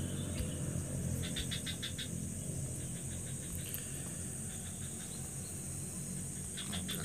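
Background ambience with no speech: a steady high-pitched whine and a low hum, with a short run of quick, evenly spaced chirps about a second in and another near the end.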